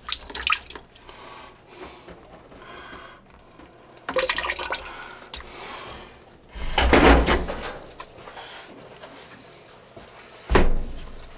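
Water draining out of an opened cleanout on a clogged kitchen drain line. It is interrupted by knocks, a loud burst about seven seconds in, and a sharp thump near the end.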